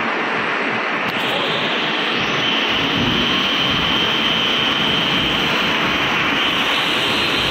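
Spindleless veneer lathe and peeling line running while peeling a log: a loud, steady machinery roar. A thin, steady high whine joins in about two and a half seconds in.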